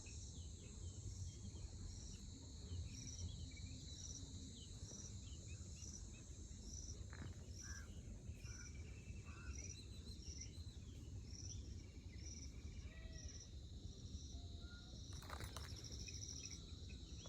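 Faint natural dawn ambience: insects give a steady high drone with a pulsing chirp about once a second, over scattered short bird calls.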